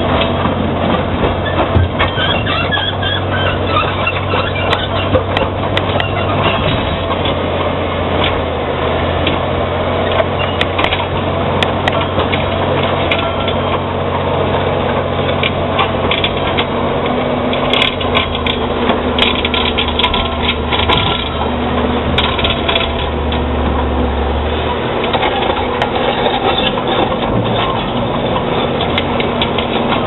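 Caterpillar D7G crawler bulldozer's diesel engine working steadily under load. Scattered sharp cracks and crunches come from rock breaking up as the dozer rips and tracks over broken material.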